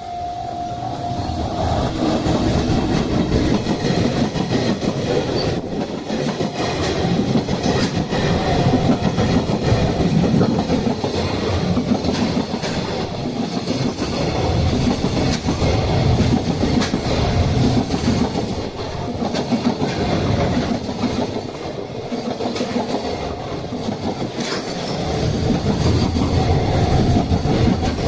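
Freight train hauled by an EF210 electric locomotive rolling past, its wagons' wheels clattering over the rail joints, swelling and easing every couple of seconds. A level-crossing warning bell sounds at the start and comes back faintly near the end.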